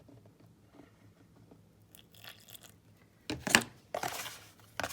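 A spoon scraping and stirring damp sand in a container: two gritty scrapes in the last second and a half, after a quiet stretch.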